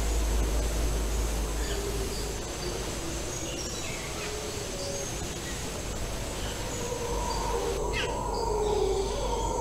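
Forest ambience: scattered short bird chirps over a steady high insect drone, with a low rumble underneath.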